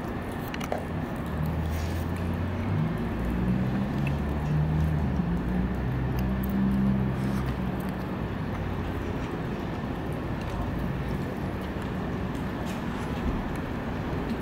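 Steady urban night background hum, with a low engine-like drone that shifts in pitch and swells for several seconds in the first half before fading back into the hum.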